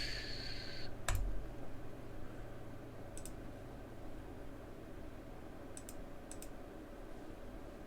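Computer mouse clicks, a few single clicks a couple of seconds apart, over a steady low electrical hum. A short rustling noise fills the first second, and the sharpest click comes just after it.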